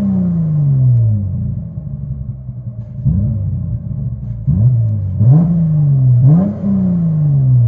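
Chrysler 300S's 3.6-litre Pentastar V6 with a straight-piped exhaust (mid muffler and resonator deleted, J-pipes) being free-revved, heard from inside the cabin. A rev falls back to idle, another rise comes about three seconds in, and two quick blips follow near five and six seconds, each dropping back down.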